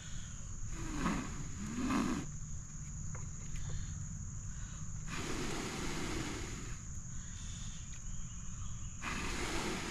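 Three long blows of breath on a smouldering char-cloth tinder bundle to coax it into flame, each about two seconds long and a few seconds apart. Crickets trill steadily behind.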